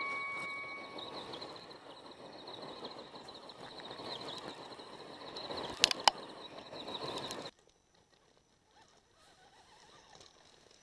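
Axial Wraith RC rock racer driving over loose gravel: a wavering high electric-motor whine with the crunch of tyres on stones, and two sharp clicks about six seconds in. About seven and a half seconds in the sound cuts to near silence.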